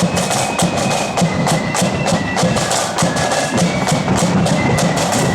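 A marching flute band playing a tune: shrill flutes carry the melody over a steady, driving beat of snare and bass drums.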